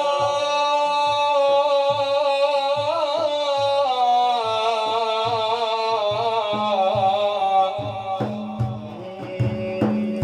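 Middle Eastern religious praise music: a long, wavering melodic line held over steady hand-drum beats about twice a second. After about eight seconds the melody drops back and the drum comes forward with sharper strikes.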